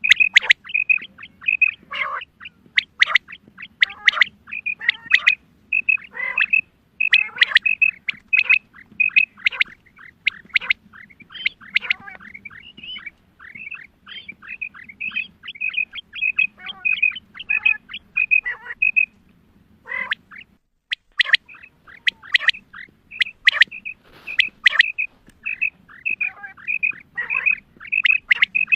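Female quail calling: fast runs of short, high chirps with downward-sweeping notes mixed in, and a short pause about two-thirds of the way through. This is a call used as a hunting lure to draw male quail.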